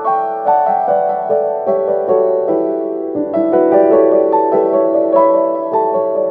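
Background music: a gentle melody of struck notes, a new note every half second or so.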